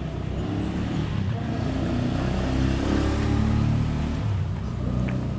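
A motor vehicle's engine passing close by: a low engine hum that swells to its loudest a little past the middle, then eases off.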